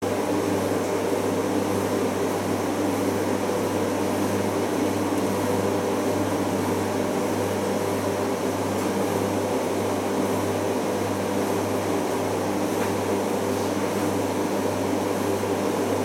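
Primus FX105 commercial washing machine running in its final rinse: a steady machine hum as the drum turns a wet duvet.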